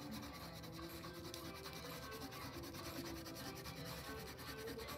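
Wax crayon pressed hard and scrubbed back and forth on paper: a soft, steady scratchy rubbing of quick strokes, laying down a solid layer of colour.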